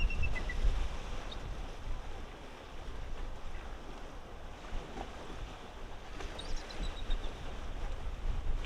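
Bald eagle calling: a short run of high, thin piping notes that step slightly down in pitch about six and a half seconds in, with the tail of another call at the very start. Wind rumble on the microphone lies under it.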